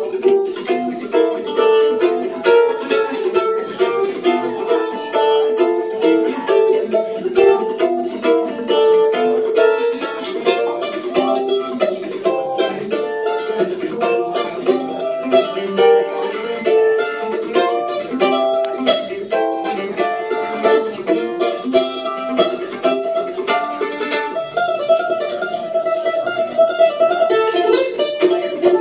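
Mandolin played instrumentally with a pick: a steady stream of quick plucked notes and chords.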